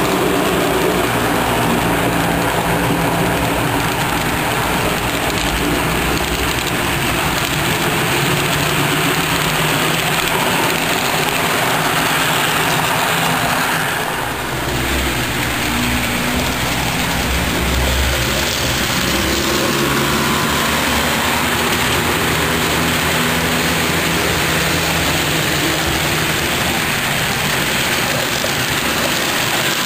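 Steady diesel locomotive engine drone with train rolling noise for a passing HO scale model freight train, dipping briefly about halfway through.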